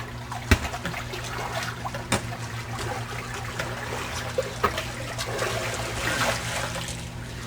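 Swimming-pool water splashing and trickling, with scattered sharp knocks, the loudest about half a second in, over a steady low hum.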